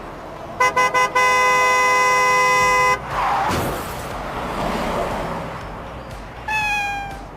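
Vehicle horn honking: three quick toots, then one long blast of about two seconds. A rushing noise follows and fades, and a short falling tone sounds near the end.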